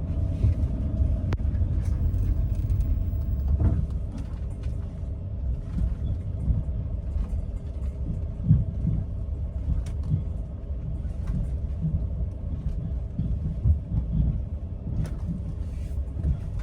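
Class C motorhome driving, a continuous low engine and road rumble with a steady hum and a few light clicks.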